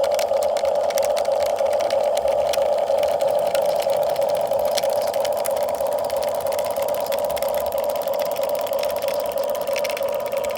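Small electric motor running steadily, a fast, even buzz with no change in speed, typical of a toy or RC model's geared motor.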